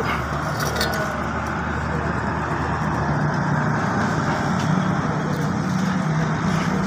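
Steady low engine rumble and road noise of passing motor traffic, with a couple of faint handling clicks near the start.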